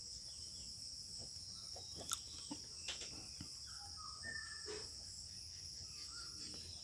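Crickets chirring in a steady, high drone, faint, with a few light pen scratches and taps on paper.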